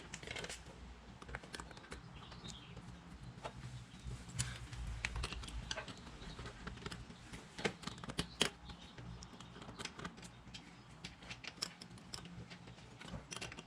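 Scattered light metallic clicks and ticks of hand tools on small bolts as they are run in and tightened down, at irregular spacing, over a faint low hum.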